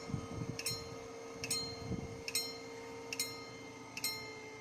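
Railway level-crossing bell ringing in a steady repeating pattern, about one strike every second, with each strike ringing on.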